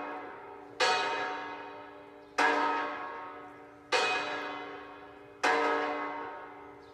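A bell tolling at a steady pace, four strokes about a second and a half apart, each ringing out at the same pitch and fading before the next.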